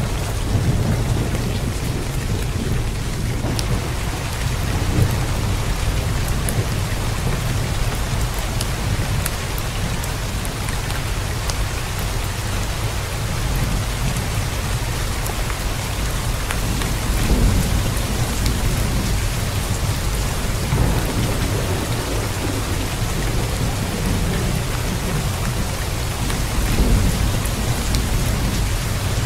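Steady heavy rain, an even hiss with a constant deep rumble underneath and scattered sharp drop ticks.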